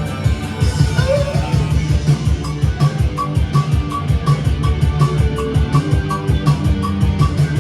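Live indie rock band playing an instrumental passage: guitar over bass and a steady, driving drum beat.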